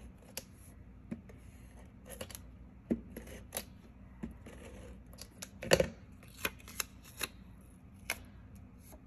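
Paper and cardstock being handled on a work surface: scattered light rustles and taps, with one louder tap about six seconds in.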